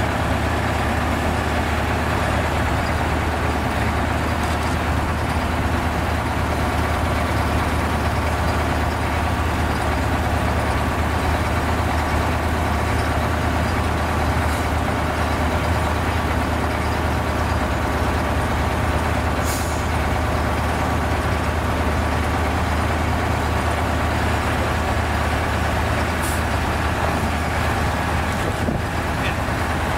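Heavy truck's diesel engine idling steadily close by, with a few short bursts of air hiss from the air system, about a third, halfway and near the end.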